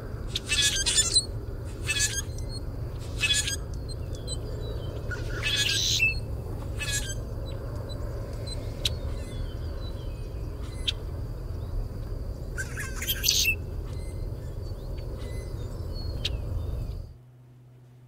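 Common grackle calling: short squeaky, metallic, screechy calls, unrhythmic and in irregular bursts, several close together in the first seven seconds and another cluster near the end, over a steady low hiss. The recording stops about a second before the end.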